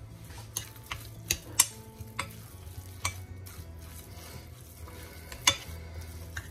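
Metal spoon stirring a raw ground-beef, rice and vegetable mixture in a ceramic bowl, with irregular sharp clinks of the spoon against the bowl. The loudest clinks come about a second and a half in and again near the end.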